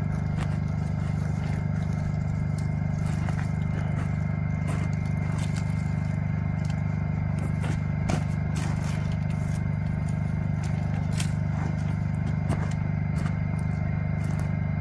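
A steady low engine hum throughout, with scattered snaps and scrapes of dry wood and cardboard being laid into a dirt fire pit.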